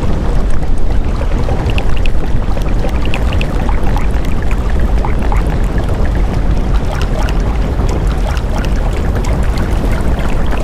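Steady rushing water, dense and continuous, with a deep low rumble and small scattered plinks like bubbles or droplets.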